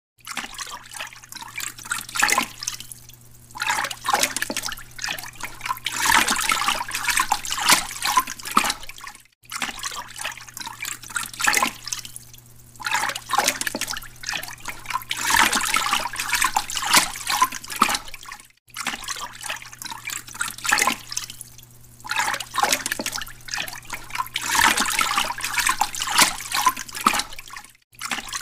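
Running, splashing water with a steady low hum beneath it. The sound repeats in a cycle of about nine seconds, broken by a brief gap each time.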